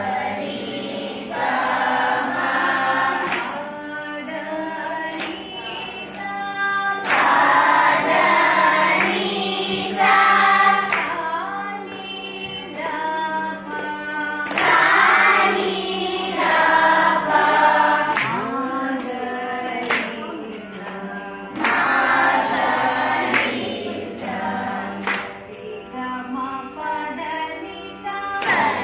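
A group of children singing together with a woman teacher, a Carnatic-style vocal exercise with gliding pitches over a steady drone. Sharp claps mark the beat every couple of seconds.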